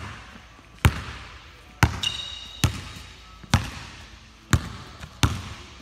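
Basketball dribbled on a hard floor in a double behind-the-back move: six bounces about a second apart, each echoing briefly. A short high squeak about two seconds in.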